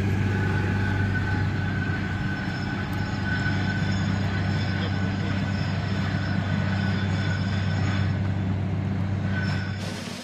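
Steady engine hum and road noise of a moving vehicle on the road, fading out near the end.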